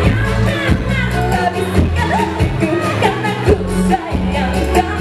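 Live amplified pop song: a woman singing a melody into a microphone over a full band, with a steady drum beat.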